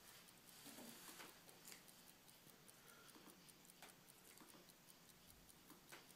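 Near silence, with a few faint scattered clicks and ticks.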